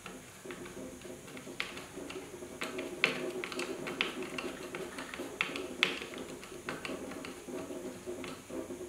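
Hex key tightening the fastener on the main link inside a Delta 16-inch scroll saw's metal arm: irregular small metal clicks and ticks as the tool seats and turns, over a low scraping rasp.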